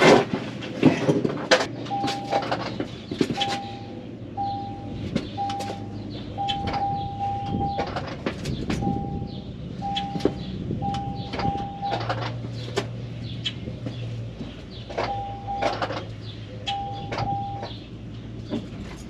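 Short electronic beeps at one steady pitch, coming irregularly about once a second with a few held longer, over clicks and knocks of hands handling wiring and parts and a steady low hum.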